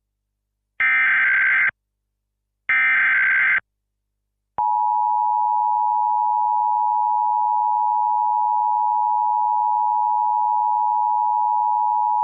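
Emergency Alert System header: two short bursts of buzzy digital data tones about a second apart, the end of the three-burst SAME header. About four and a half seconds in, the EAS attention signal begins: a steady two-tone tone that holds without a break, announcing an emergency alert.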